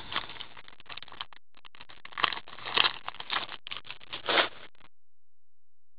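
Foil wrapper of a hockey card pack crinkling as it is torn open, with the cards rustling as they are slid out and flipped through: a string of short rustles with a few louder crackles, stopping about five seconds in.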